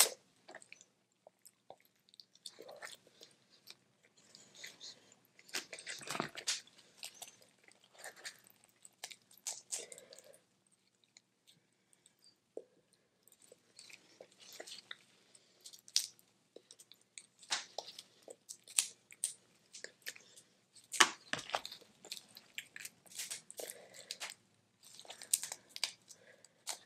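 Boiled crawfish being peeled and eaten close to the microphone: shells cracking and snapping, with chewing, in irregular bursts and sharp clicks separated by short pauses, with a quieter stretch near the middle.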